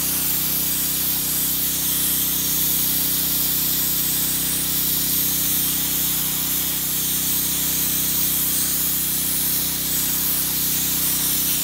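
IBIX Trilogy 28 low-pressure abrasive blaster spraying 120-mesh garnet at 2 bar against brickwork: a steady hiss of air and grit, with a steady low hum underneath.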